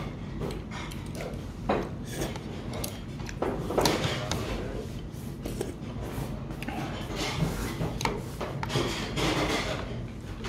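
Eating sounds: metal chopsticks and a spoon clicking and scraping against a plastic takeout container, with chewing and mouth sounds in between.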